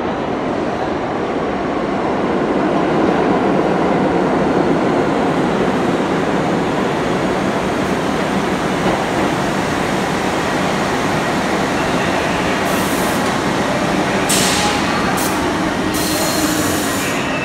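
R62A subway train pulling into an underground station, a steady loud rumble of wheels and motors that builds over the first few seconds as the train comes alongside the platform. In the last few seconds there are several short bursts of high hissing and squealing as it slows.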